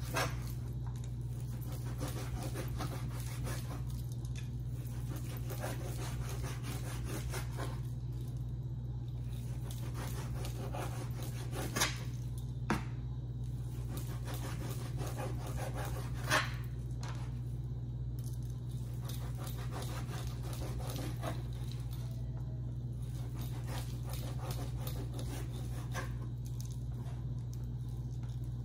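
Chef's knife chopping raw bacon on a plastic cutting board: repeated soft chops and scrapes, with a few sharper knocks around the middle. A steady low hum runs underneath.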